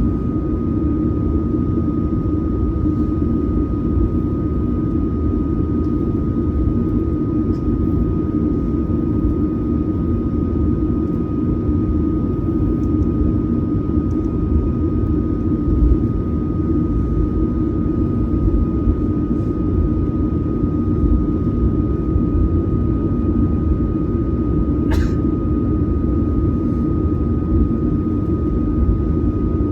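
Boeing 737-900ER cabin noise, heard from a seat in the rear economy cabin: a steady rumble of its CFM56 jet engines and airflow, with a constant high tone above it. Near the end there is one brief faint chirp.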